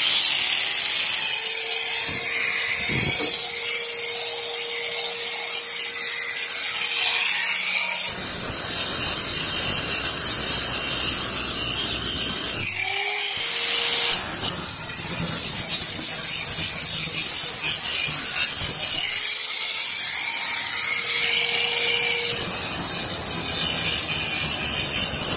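Electric angle grinder with a sanding disc grinding down weld beads on a welded steel patch in a Vespa scooter's body, throwing sparks. The motor's steady whine alternates with denser grinding noise as the disc bears down on the metal, easing off briefly about halfway through.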